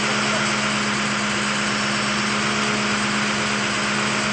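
Engine running at a steady, unchanging speed: a constant drone with a strong steady hum, from the tree-cutting crew's powered equipment.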